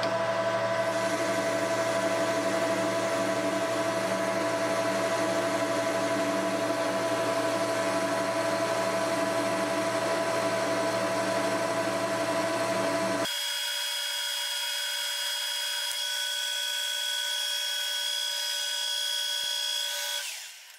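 Metal lathe running while a carbide boring bar takes a finishing cut inside the bore of a 4140 steel round bar: a steady hum and whine. About 13 seconds in, the low hum drops out abruptly and a higher whine carries on, then the sound dies away just before the end.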